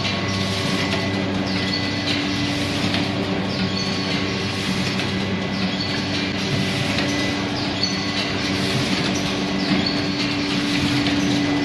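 Rotary doypack pouch filling and sealing machine running: a steady hum, with short hissing bursts that repeat about once a second as it cycles.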